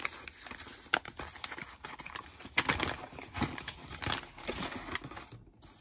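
Foil sandwich wrapper crinkling and crackling as it is pulled open by hand, in quick irregular rustles that stop about half a second before the end.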